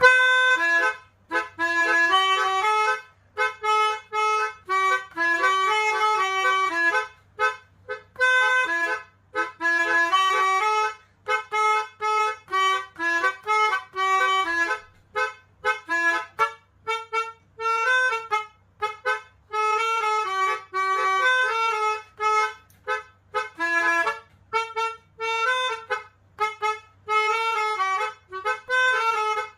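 Pianika (melodica) playing a tune in the style of a basuri multi-tone vehicle horn. Several notes sound together in choppy bursts of chords, with short gaps between them.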